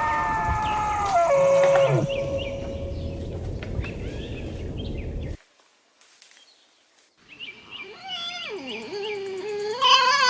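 Deer calling: a drawn-out, nasal bleat that holds its pitch and then drops away about two seconds in, over outdoor background noise. After a brief silence, another wavering, mewing call rises and falls near the end.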